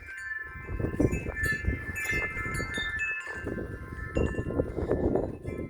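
Wind chimes ringing in the wind, several tones overlapping with light tinkling strikes, over the low rumble of wind gusting on the microphone.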